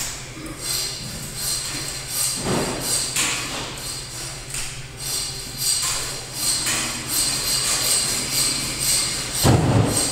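Irregular thumps and knocks as a hanging deer carcass is worked on at a metal rack, with scraping and crackling between them and a steady low hum under it all; the heaviest thumps come about two and a half seconds in and near the end.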